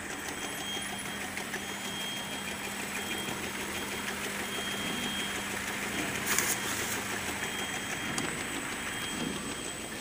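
Automatic double-side labeling machine running: conveyor and motors give a steady hum with thin high whines. A brief, louder rush of noise comes about six seconds in.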